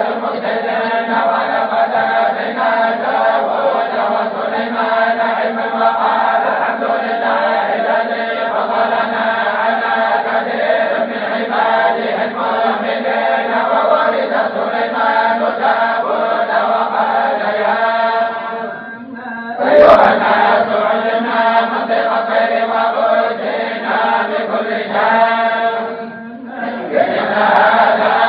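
A group of voices chanting together in a continuous, steady recitation, in the manner of a Moroccan tolba chant. The chanting dips briefly about two-thirds of the way through, then a single sharp knock cuts in. It breaks off again for a moment near the end before resuming.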